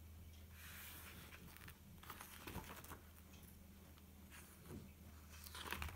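Faint rustling of paper pages being turned in a spiral-bound address book, over a low steady hum.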